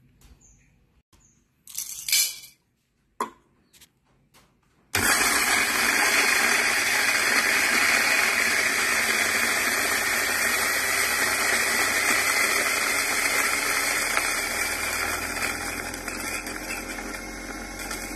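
A few light clicks and knocks from handling, then an electric coffee burr grinder starts suddenly about five seconds in and grinds a 14 g dose of roasted coffee beans with a loud, steady grinding whir. Near the end the sound eases off to a lower motor hum as the last beans pass through the burrs.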